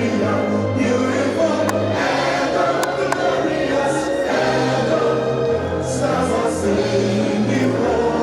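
A choir singing gospel music over a sustained low bass line whose notes change every second or two.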